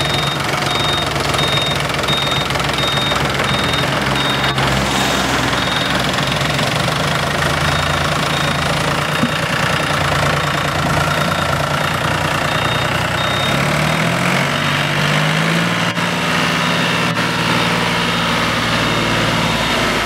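John Deere tractor's diesel engine running steadily while powering a tractor-mounted combine harvester. Its speed rises about two-thirds of the way through.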